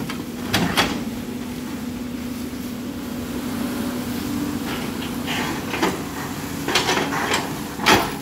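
Caterpillar 320D L excavator running steadily as it digs, with sharp metallic knocks and clanks from the bucket and its linkage: two just after the start, several more in the second half, the loudest near the end.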